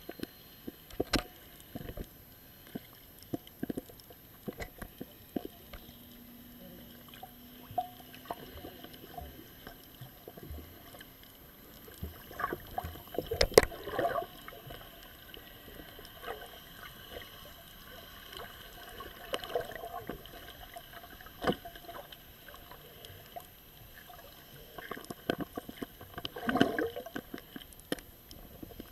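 Water sloshing and gurgling around a small boat, with scattered knocks and clicks; the loudest knock comes about halfway.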